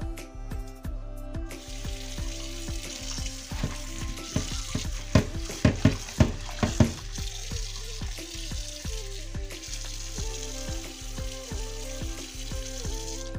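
Tap water running into a steel bowl of raw potato slices, starting about a second and a half in, while a hand swishes the slices around. In the middle there is a string of sharp clatters as the slices and hand knock against the bowl. Background music with a steady beat plays underneath.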